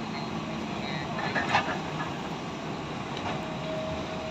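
Hydraulic excavators' diesel engines running steadily, with a short clatter of knocks about a second and a half in.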